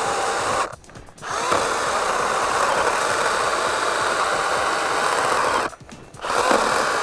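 Makita MUC101D 18V cordless handheld chainsaw running and cutting through leftover branch wood. It stops briefly just under a second in and again about six seconds in, then starts again each time.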